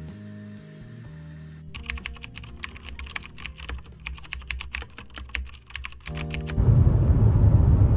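Computer keyboard typing sound effect: a rapid, irregular run of key clicks lasting about four seconds, between stretches of soft music. Near the end a louder low rumble of car cabin noise begins.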